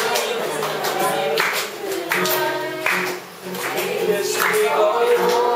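A group of young voices singing together to an acoustic guitar strummed in a steady beat.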